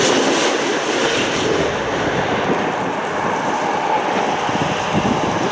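Engines of an Airbus A380 on landing approach: a loud, steady rush of jet noise as the airliner passes low overhead and moves off toward the runway, easing slightly over the first couple of seconds.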